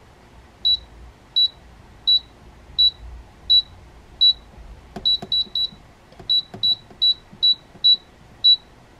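The touch control panel of a Paula Deen 10-quart digital air fryer beeps once for each press of the temperature-up button, and each beep raises the setting one step. There are about fifteen short high beeps, evenly spaced at first and coming quicker from about halfway.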